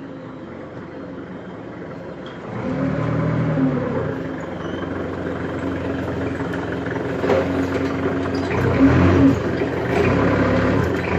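Hyundai forklift engine running steadily, getting louder about two and a half seconds in and swelling briefly near the end.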